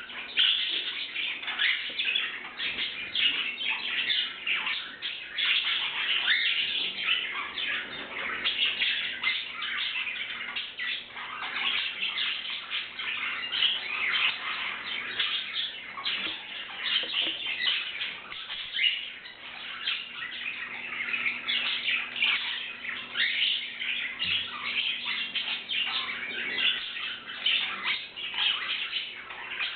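Canaries chirping and calling, a continuous stream of short, overlapping high notes.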